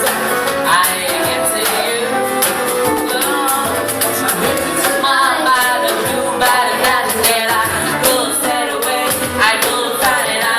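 Music with a singing voice over a steady percussive beat.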